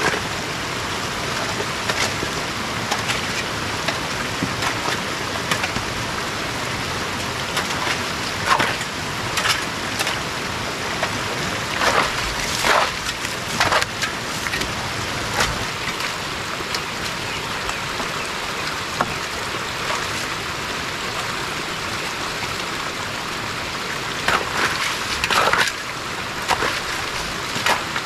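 Rainwater runoff rushing down a small gully as a steady hiss, with scattered scrapes and knocks of a hoe digging into wet soil and stones.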